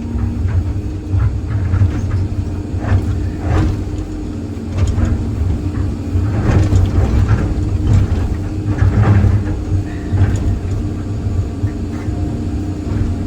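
Excavator's diesel engine running steadily under load while the bucket knocks and scrapes against thick concrete, breaking it up, with irregular sharp hits.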